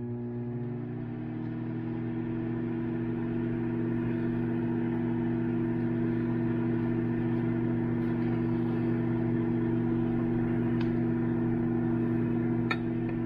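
Microwave oven running with a steady electrical hum while it heats a cup of soft-plastic lure mix back to a pourable state.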